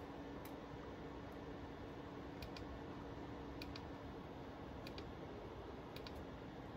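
A few faint, sharp clicks about a second apart, over a low steady hum: the CB radio's controls being clicked as its mode is changed to AM.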